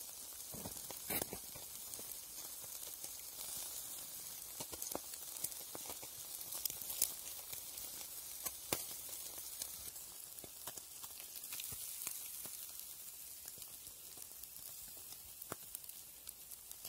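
White amur (grass carp) chunks on skewers and in grill baskets sizzling over hot charcoal, a steady hiss with scattered sharp crackles and pops.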